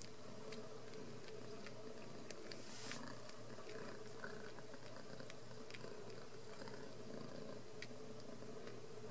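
Ragdoll mother cat purring steadily while nursing her newborn kittens, with faint scattered ticks and a brief rustle about three seconds in.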